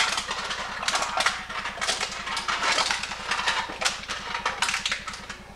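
Aluminum cans being fed into a can crusher and crushed flat: a quick, irregular run of crunching, clattering metal over a steady low mechanical hum.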